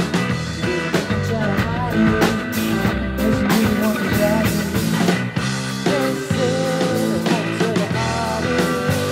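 A live rock band playing an instrumental jam: electric guitars and a drum kit playing together.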